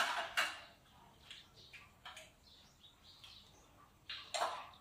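Spoons clinking and knocking against bowls and a plate during a meal: a few scattered short knocks, loudest at the start and again about four seconds in.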